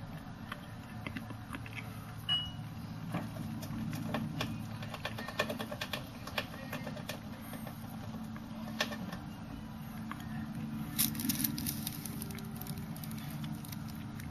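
Roborovski dwarf hamster scratching: bursts of quick, scratchy clicks, densest a few seconds in and again near the end, over a steady low hum. A brief high-pitched squeak sounds about two seconds in.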